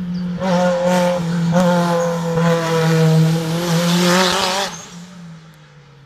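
Race car's tyres squealing hard through a hairpin: a loud, wavering squeal over engine noise. It starts about half a second in and stops sharply near the five-second mark.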